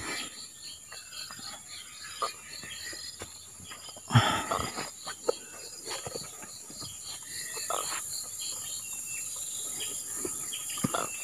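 Insects chirping steadily: a pulsing chirp about three times a second over a continuous high hum. Scattered knocks and rustles from someone moving about on the dirt bank overlay it, the loudest knock about four seconds in.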